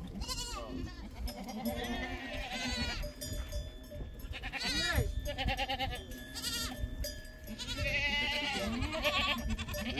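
Goats bleating: many quavering calls, overlapping and following one another.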